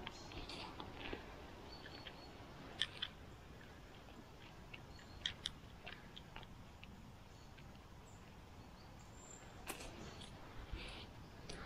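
Faint scattered crackling and crunching from leaf litter and soil on a forest floor, with a few brief high bird chirps.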